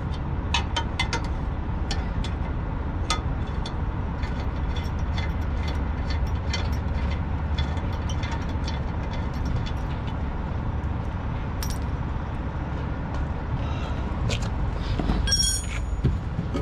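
Combination wrench clicking and ratcheting against the nut on an air spring's lower mount, with small metal clinks throughout. About fifteen seconds in, the nut drops onto the concrete with a short metallic ring. A steady low rumble runs underneath.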